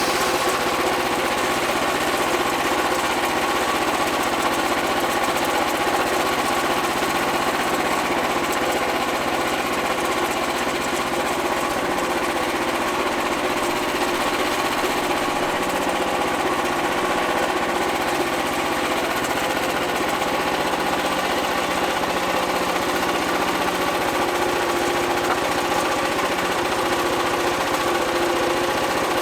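Portable band sawmill's engine running steadily while its band blade cuts through a large black walnut log, the pitch shifting slightly under the changing load.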